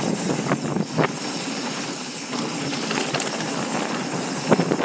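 Wind rushing over the camera microphone and knobby tyres rolling on a dirt trail as a Specialized Enduro mountain bike descends, with sharp clatters from the bike over bumps about a second in and near the end.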